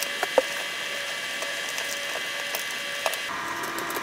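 Light plastic clicks and handling noises as a network cable is pushed up into a ceiling junction box and a turret security camera is seated on its mounting plate, over a faint steady tone that shifts pitch about three seconds in.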